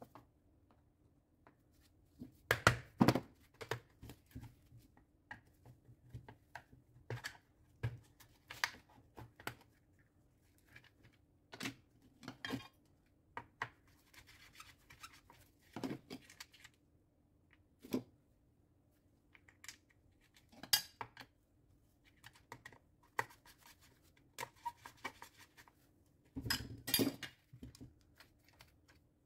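Scattered clicks, taps and scrapes of hard plastic and metal as a Makita GA9020 angle grinder's housing is handled and its switch is worked loose with a screwdriver, with a cluster of louder knocks about three seconds in and again near the end.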